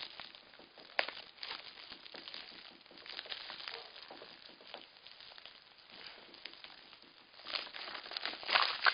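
Packaging of a small mailed package being torn open and crinkled, in irregular crackles and rustles that grow busier and louder near the end.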